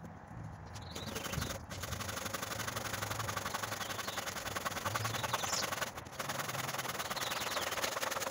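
Hand saw cutting through a dry barked stick, back-and-forth strokes with the teeth rasping through the wood. The sawing pauses briefly about a second and a half in and again about six seconds in.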